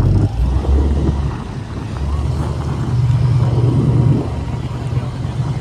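A vehicle engine running with a steady low rumble, its pitch dropping about a second in and rising again near the middle.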